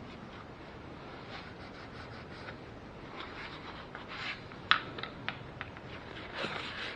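Oil filler cap being put back on the engine's valve cover: light rubbing and scraping, with a few sharp clicks about five seconds in.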